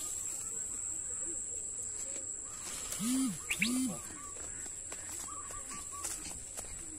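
Rural outdoor ambience with a steady high-pitched insect drone and short bird chirps. Two brief low calls, rising and falling, come about three seconds in and are the loudest sounds.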